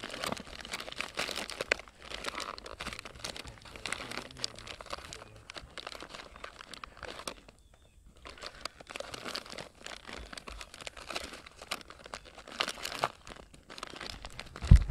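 Sheets of paper rustling and crinkling in irregular bursts as a shot-through stack is pulled apart and torn to dig out spent .22 long rifle bullets, with a short pause about halfway.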